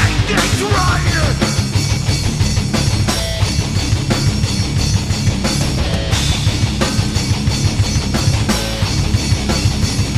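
Background music: loud, heavy rock with fast drums and distorted guitar.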